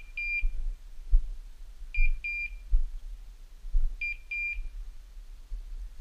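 Hunting dog's beeper collar sounding its point signal: a pair of high beeps, a short one then a longer one, repeated every two seconds, the signal that the English setter is standing still on point. Low thumps run underneath.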